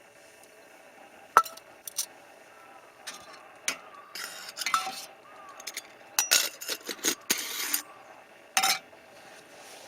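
Cookware and utensils being handled, clinking and rattling: a couple of sharp clinks early, then a run of short scraping rattles and knocks.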